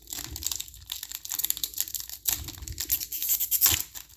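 Foil trading-card pack wrapper crinkling as it is torn open, with the cards inside being handled, making a rapid run of small crackles and clicks.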